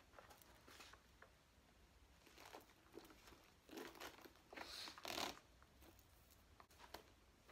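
Faint rustling and scraping as a quilted leather shoulder bag on a chain strap is moved against clothing, with a louder burst of handling for about a second and a half around the middle.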